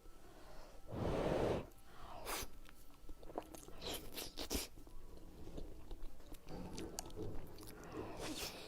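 A person chewing and biting food close to the microphone: a louder crunchy burst about a second in, then scattered soft clicks of chewing.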